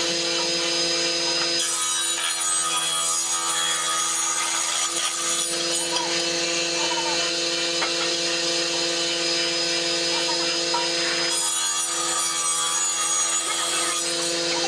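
Chainsaw running steadily and cutting into wood, the cutting noise thickening from about a second and a half in and easing off about eleven seconds in.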